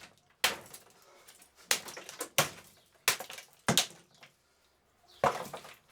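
Goldair fan heater's plastic casing being struck hard about six times, each blow a sharp crack of breaking plastic, with a pause before the last one.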